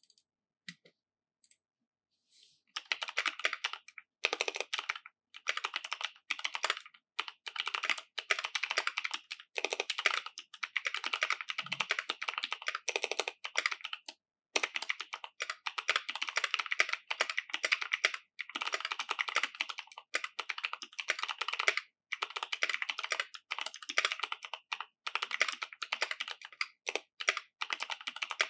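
Typing on a 75% custom mechanical keyboard with lubed Clickiez clicky switches, an aluminium plate and GMK keycaps: dense runs of key clicks broken by brief pauses, starting about two and a half seconds in.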